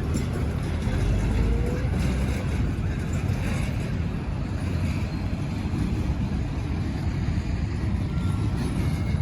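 Steady low rumble of road vehicle noise, with no distinct events.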